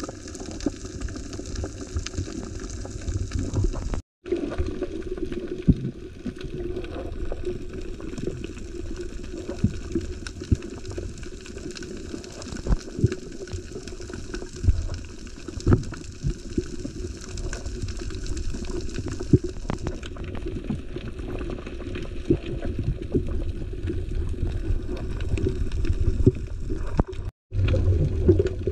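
Muffled rushing water noise heard through an underwater camera, with scattered sharp clicks. The sound cuts out completely for a moment twice, about four seconds in and near the end.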